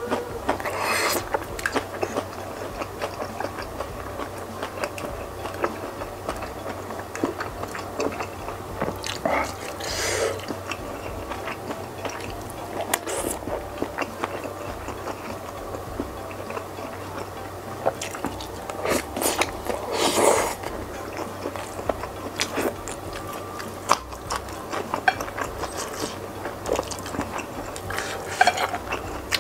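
Close-miked chewing and biting of spicy meatball soup with beef rib and fried tofu, with wet mouth sounds and the clicks of a wooden fork and spoon on a ceramic plate. A few louder mouth noises stand out about a second in, around ten seconds and around twenty seconds.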